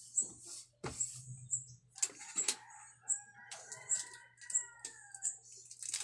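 A rooster crowing in the background, one long wavering call from about three seconds in, over repeated high-pitched chirps of a small bird. Sharp clicks and rustles of handling, from taping the paper, come and go throughout.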